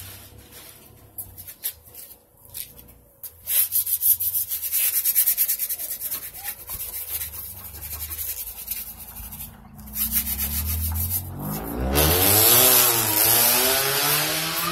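Rapid rubbing strokes by hand for several seconds. Then, from about ten seconds in, a car engine revs as the car pulls away, its pitch rising and falling; this is the loudest sound.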